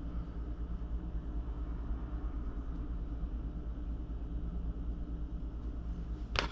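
Steady low background hum, with a single sharp click near the end as a small cross wrench is picked up off the workbench mat.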